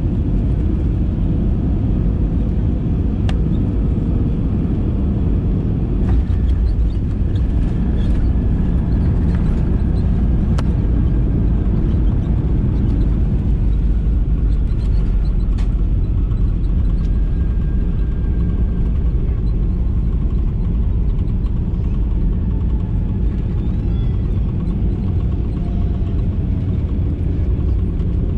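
Airbus A320 cabin noise during the landing rollout: a steady, loud rumble of the wheels on the runway and the engines, heard through the fuselage, with faint whines slowly falling in pitch and a few light clicks.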